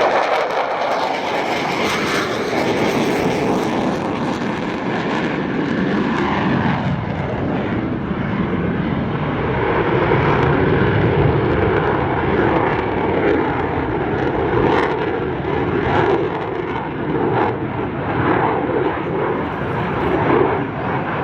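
Loud, steady jet noise from an F-15 fighter's twin engines as it flies its demonstration, swelling and easing slowly.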